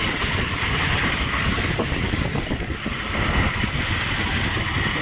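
Steady road-vehicle noise as a coach bus drives past close alongside on a wet road, engine and tyres running with a constant low rumble.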